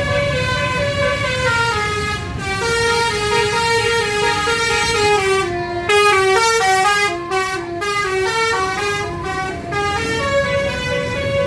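Indonesian 'telolet' musical bus horn playing a tune: a run of short horn notes stepping up and down in pitch, loudest about six seconds in, over a steady low rumble.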